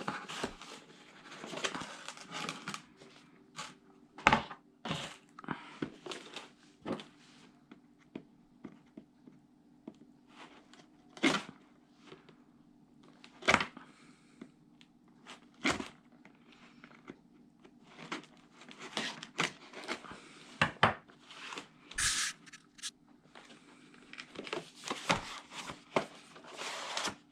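Packaging being opened and handled by hand: rustling and tearing of packaging, with scattered sharp clicks and knocks.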